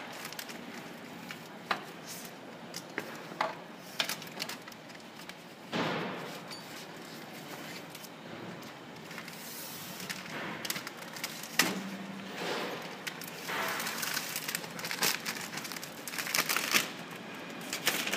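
Clear plastic packing film rustling and crinkling as it is handled and threaded by hand through the rollers of a packing machine, with scattered clicks and knocks from the machine's metal parts.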